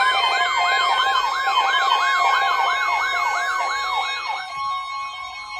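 Siren sounding: a fast yelp sweeping up and down about three to four times a second over a steady held tone. The yelp drops out about four and a half seconds in, and the steady tone carries on more faintly.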